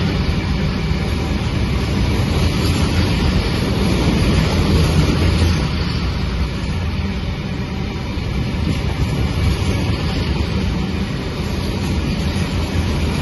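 Freight train's open box wagons rolling past close by, a steady heavy rumble of wheels on rail.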